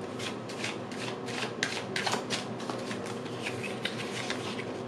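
A deck of cards shuffled by hand: a quick run of light card-on-card clicks and flicks, about four to five a second, a little softer in the second half.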